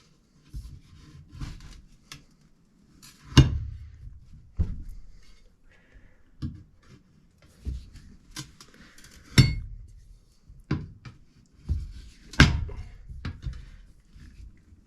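Irregular metallic clanks and knocks of tools handled on metal, with a few loud strikes among quieter taps.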